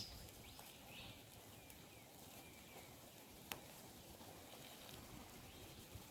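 Near-quiet outdoor ambience around a low-burning campfire: two sharp pops or snaps, one at the very start and one about three and a half seconds in, with a few faint high chirps in the background.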